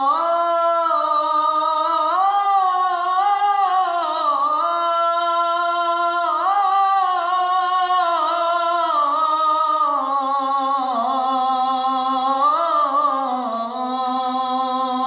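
A young man singing an Islamic devotional supplication (ibtihal) solo and unaccompanied. He draws out one long melismatic run, the pitch winding up and down without a break.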